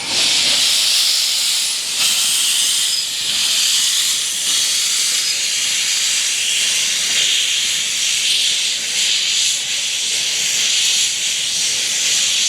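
Narrow-gauge steam locomotive letting off steam: a loud, steady hiss that starts suddenly and cuts off suddenly.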